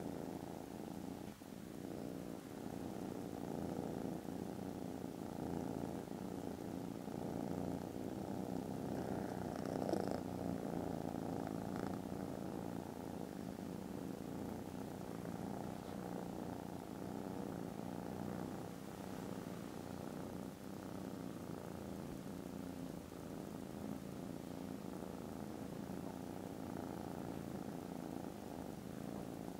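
Kittens purring steadily, with a brief click about a third of the way through.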